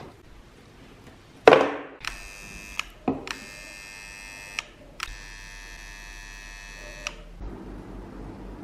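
A transformer soldering gun buzzing in three bursts as its trigger is pressed and released: short, then longer, the last about two seconds long. It is heating its wire-loop tip to solder the lead wires of a rewound fan-motor stator. A sharp knock of a tool comes just before the first burst.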